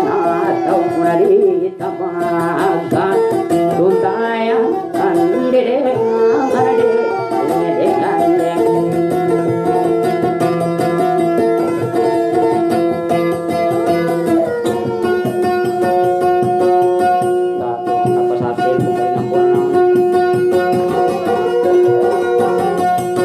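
Acoustic guitar music: a melody of sliding, bending notes with a sitar-like twang over long, held tones.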